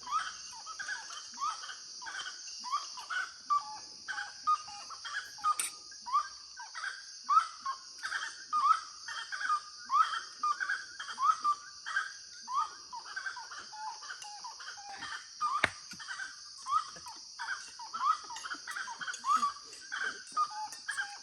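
A saracura-três-potes (grey-cowled wood-rail) calling on and on, a long run of loud, short rising notes about one and a half a second, over a steady high chorus of crickets. One sharp click comes about 15 seconds in.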